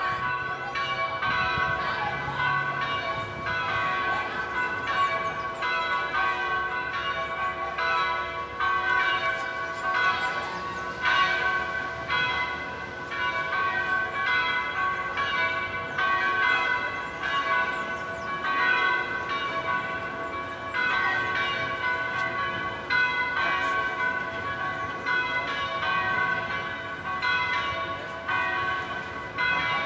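Church bells of a Gothic tower ringing without pause, one stroke following another, each bell's tone ringing on beneath the next strike.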